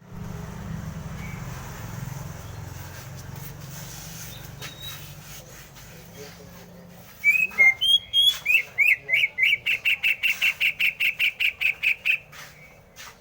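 Green leafbird (cucak hijau) singing. About seven seconds in it starts with a few varied whistled notes, then breaks into a fast run of repeated sharp chirps, about six a second, for some four seconds. Before the song there is a low rumble with scattered faint clicks.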